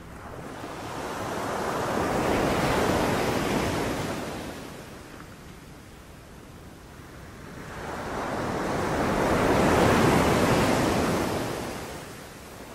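Sea waves breaking and washing up on a beach: two waves, each rising to a peak of surf noise over a few seconds and then fading, about seven seconds apart.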